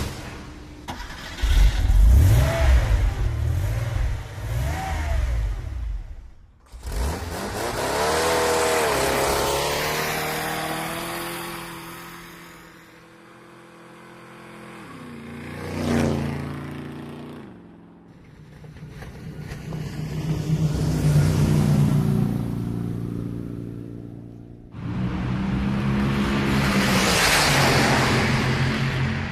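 A series of motor-vehicle engine sounds, the engines revving up and down in pitch, in several separate takes. About 16 seconds in, one vehicle sweeps past close by, loudest as it goes by.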